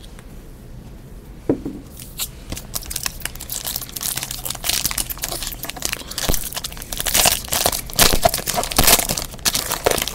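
A football trading card pack's wrapper being torn open and crinkled by hand. A single soft knock comes about a second and a half in. The crackling starts about two seconds in and grows louder toward the end.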